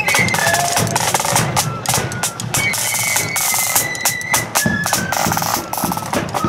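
Marching flute band playing: side drums beat a fast, dense rhythm while flutes carry a high melody over them.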